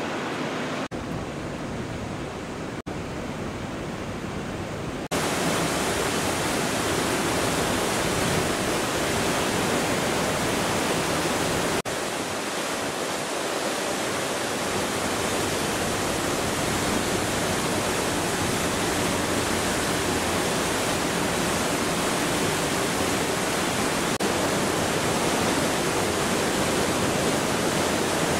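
Steady rushing wind on the open deck of a moored cruise ship, with no gusting rhythm. It steps up abruptly and grows louder about five seconds in.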